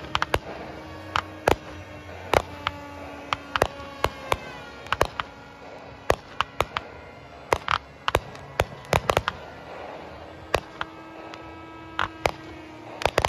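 Fireworks going off: many sharp pops and cracks in irregular clusters, some in quick pairs, with crackling between them. A steady hum drifts slowly in pitch underneath.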